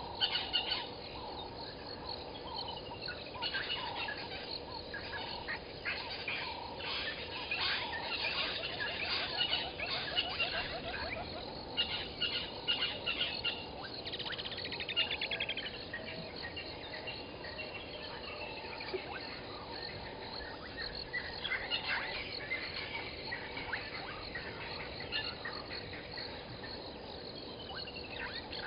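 Bush waterhole ambience: several birds chirping and calling, with short falling whistles and a brief trill, over a steady background chorus of insects and frogs.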